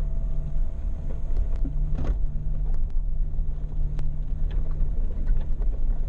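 Jeep driving slowly up a rough, rocky dirt track: a steady low engine drone with scattered knocks and rattles from the bumpy ground, and one louder jolt about two seconds in.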